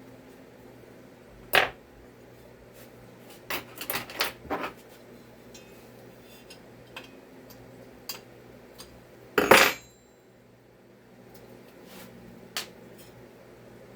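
Small metal chainsaw engine parts clinking and clattering on a workbench during teardown. There is a sharp clink about a second and a half in, a quick run of clinks around four seconds, a louder rattling clatter about nine and a half seconds in, and a few light ticks between.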